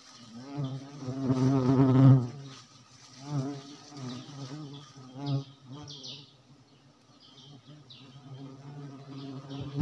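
Honeybees buzzing close around the microphone. The buzz swells and fades as the bees pass, loudest about one to two seconds in, with shorter passes after.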